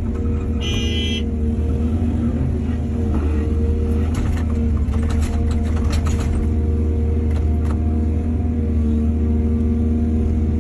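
Heavy diesel earthmoving machinery running steadily. A brief high-pitched tone sounds just under a second in, and a cluster of sharp knocks and clatter comes between about four and six seconds in.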